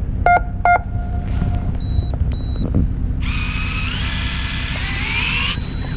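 Two short electronic beeps, then two higher, shorter beeps, then a small electric motor whining for about two seconds with its pitch rising before it cuts off. A boat engine's low hum runs underneath.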